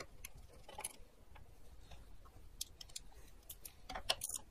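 Faint, irregular clicking of a ratchet with a 10 mm socket as the fender bolt is run in through the hood-strut bracket, with a denser run of louder clicks in the last couple of seconds.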